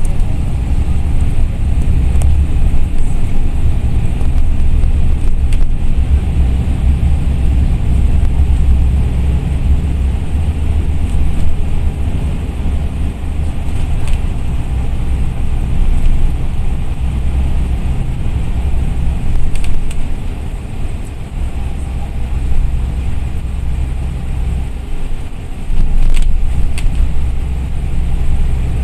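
Cabin noise inside a moving KMB bus at road speed: steady low engine and tyre rumble, with a few faint clicks or rattles.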